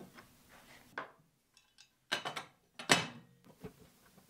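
Knocks and clatter of a table saw's throat-plate insert being handled on the saw's metal table: a knock about a second in, a short rattle just after two seconds, and the loudest, sharp clack just before three seconds, ringing briefly.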